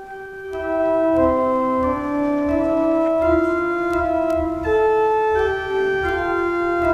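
Organ playing slow, sustained chords with a moving melody line above. It enters quietly and swells to full volume within the first second.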